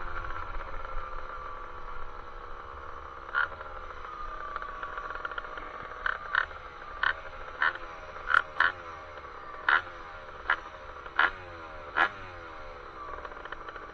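Two-stroke engine of a 1978 Honda Hobbit moped with a Stage 6 R/T MK1 kit, its pitch falling as the bike slows, then revved in about ten short, sharp blips, each dying away in pitch before the next.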